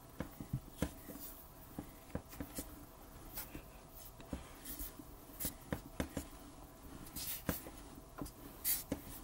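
Hands rolling Play-Doh into a long snake on a sheet of paper: palms and fingers brushing and rubbing across the paper, with irregular knocks and short scraping strokes.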